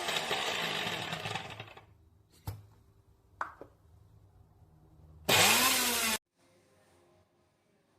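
Preethi Crown mixer grinder's motor winding down after running and fading out within about two seconds. Two sharp clicks follow. About five seconds in, a short loud burst of the motor runs for under a second and cuts off abruptly.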